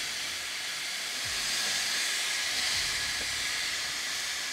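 Thick pork chops sizzling on the hot grill grate of a Ninja Woodfire grill as they are turned with tongs, a steady hiss that swells a little partway through.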